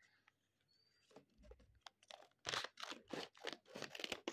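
Scissors cutting through folded lined-paper gift wrapping: a run of crisp, crunching snips that starts about a second in and grows louder and denser about halfway through.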